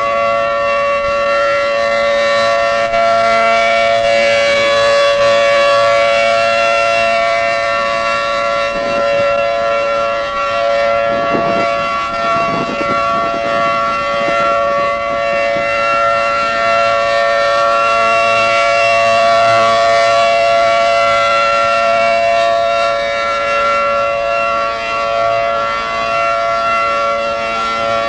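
Federal Signal 500-series fire-hall siren sounding a steady alert at full speed: a continuous chord of two steady tones with no rise or fall in pitch, the signal sounded for a tornado warning drill. It is heard through an old cassette recording, dulled in the highs.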